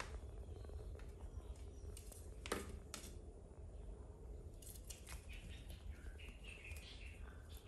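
Faint rustling and a few soft, sharp clicks as a kitten plays with a wooden stick on a rug. Short high chirping notes come in near the end.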